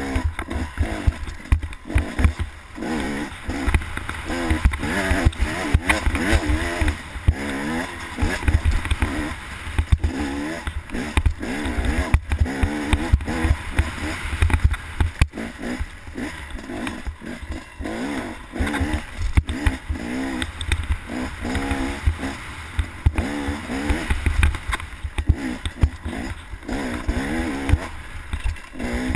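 Dirt bike engine revving up and down over and over as it rides a rough trail. Heavy wind rumble and bump knocks on the helmet-mounted microphone lie over it.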